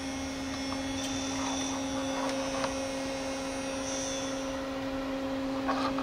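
Steady electrical hum from the amplifier test bench, a low tone with a fainter one an octave above, with a few faint clicks as RCA cables are handled.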